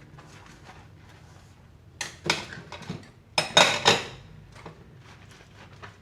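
Dishes and cutlery being handled in a sink during hand washing: light clinks throughout, with two louder bursts of clattering about two seconds and three and a half seconds in.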